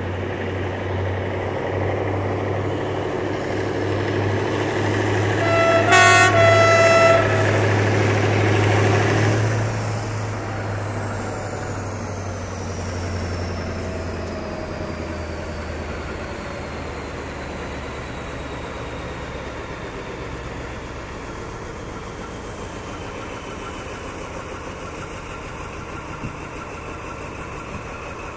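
Diesel locomotive engine (TCDD DE 24340) running on a depot engine-and-horn test. The engine builds in level, the horn gives two short toots about six seconds in, and around ten seconds in the engine falls back toward idle. A high whine then drops slowly in pitch.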